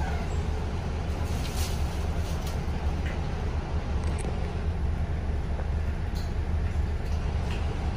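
City bus heard from inside the cabin while driving: a steady low engine and road rumble, with a few faint clicks or rattles.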